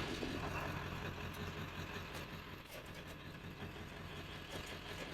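A steady low engine hum, like a vehicle idling, with a few faint clicks.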